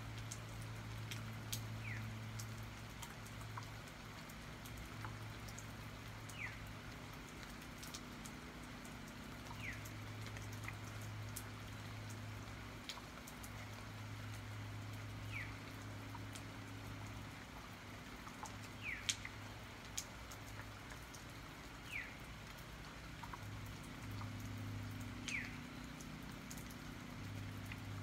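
Steady rain with drops ticking and dripping close by, and a bird giving a short falling chirp every three to four seconds, about seven in all. A low steady hum runs underneath.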